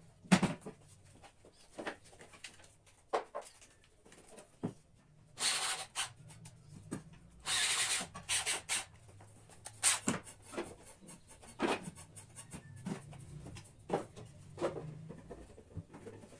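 Hands-on cabinet assembly: scattered knocks and clicks of wooden cabinet parts and drawer hardware being handled and fitted, the loudest knock just after the start, with two short scraping noises a little before and after the middle.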